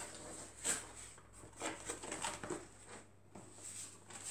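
Cardboard mailer box being opened by hand: the flaps and lid scraping and rustling, with several light knocks and taps.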